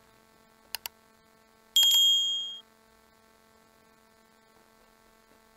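Subscribe-button animation sound effect: two quick mouse clicks, then a bright bell ding about a second later that rings out and fades within under a second. A faint steady mains hum sits underneath.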